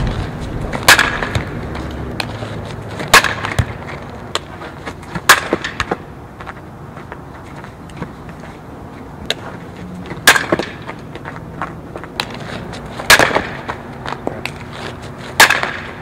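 Softball bat hitting pitched softballs on slap swings: about six sharp cracks spaced two to three seconds apart, each followed by a brief ring.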